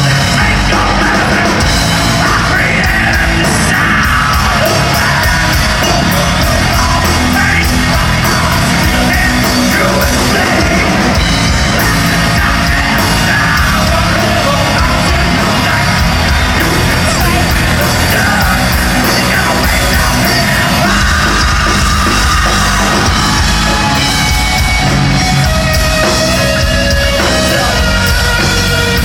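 Live hard rock band playing loudly, with yelled vocals over heavy guitars, bass and drums, without a break.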